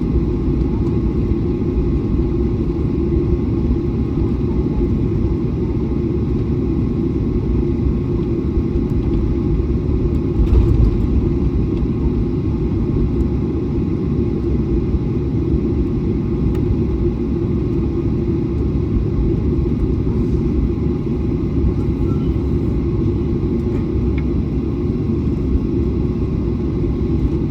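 Airliner taxiing: a steady low rumble of its engines at taxi power and its wheels rolling, with a brief louder thump about ten seconds in.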